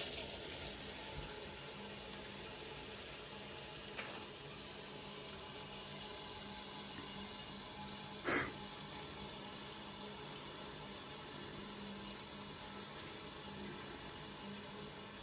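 Water hissing steadily through a newly installed boiler pressure reducing valve as the system is pressurised to check for leaks, over a steady low hum. A sharp knock comes about halfway through.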